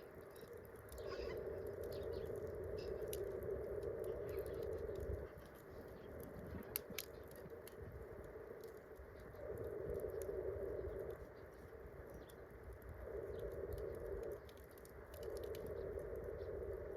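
Wood campfire crackling, with scattered small pops and one sharper pop about seven seconds in. Under it a low hushing noise comes and goes in stretches of one to four seconds.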